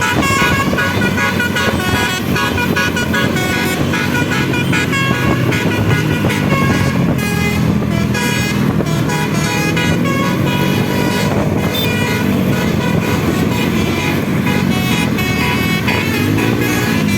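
Basuri telolet multi-tone bus horn playing a long run of quick, shifting notes. Underneath it a bus engine runs, its pitch rising and falling as it revs.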